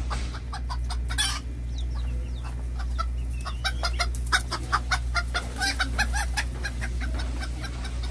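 Chicken clucking: many short clucks in quick succession, over a steady low hum.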